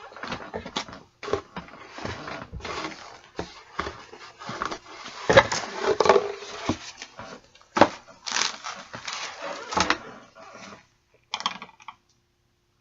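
Irregular rustling, crinkling and light knocks of packaging and items being handled. It thins out and stops shortly before the end.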